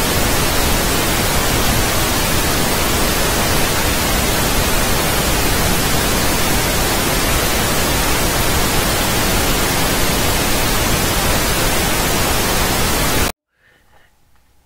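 Television static hiss, loud and steady, cutting off suddenly about 13 seconds in and leaving only faint room tone.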